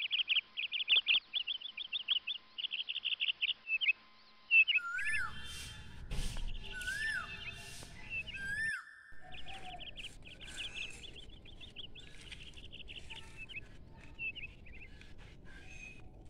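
Small birds chirping in quick twittering trills, with a few separate rising-and-falling whistled notes a third of the way through; the chirping grows fainter in the second half.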